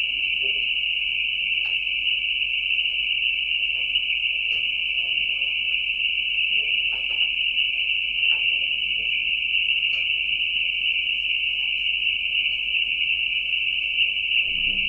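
A steady, high-pitched hiss that runs unbroken, with a few faint clicks now and then.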